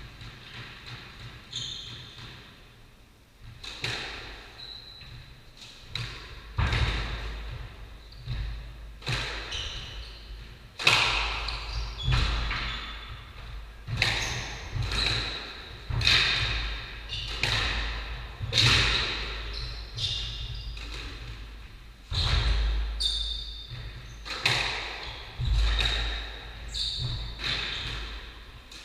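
Squash rally: the ball is struck by rackets and smacks off the walls about once a second, each hit echoing around the court, starting about three and a half seconds in. Short squeaks of shoes on the wooden floor come between the hits.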